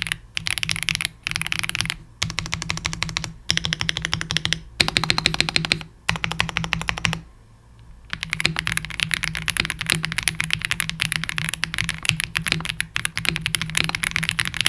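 Fast typing on a Shadow Zeus65 65% gasket-mount mechanical keyboard with Shadow Starry Flower linear switches, a PC plate and PBT keycaps: dense keystroke clacking. It comes in several short bursts with brief breaks, has a quieter pause about seven seconds in, then runs on as continuous fast typing.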